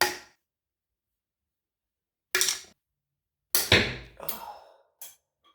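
Flathead screwdriver prying the wiper seals out of a Fox 34 fork's lower legs: five short, sharp scrapes and snaps with silence between, the loudest pair a little past halfway. It is hard, forceful work that feels like it will destroy the part.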